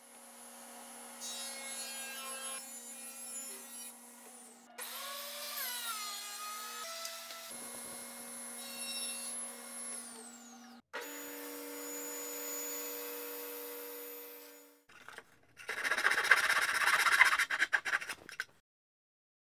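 Shop power tools running in several short stretches, one pitch rising about five seconds in and one motor winding down about ten seconds in. Then a hand saw cutting through a board in quick strokes, the loudest sound, stopping about a second before the end.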